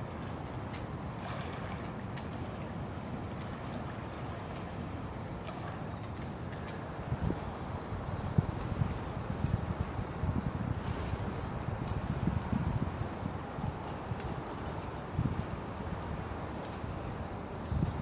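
Insects trilling in one steady, unbroken high note over a low outdoor rumble. About seven seconds in, the rumble grows louder, with occasional small thumps.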